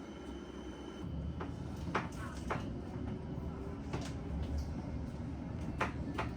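Low steady rumble with about seven light clicks and knocks scattered through it, the rumble growing louder about a second in.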